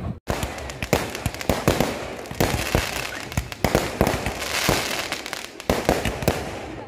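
Festival fireworks display going off: aerial shells bursting in sharp bangs that come thick and fast at an irregular rate, over a continuous noisy wash between them.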